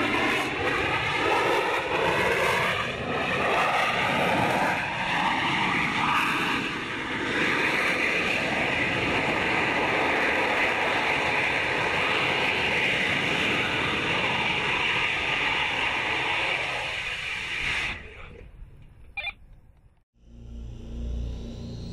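Armadillo Aerospace rocket engine firing in flight, a loud steady rushing noise whose tone slowly sweeps and phases. It stops about eighteen seconds in.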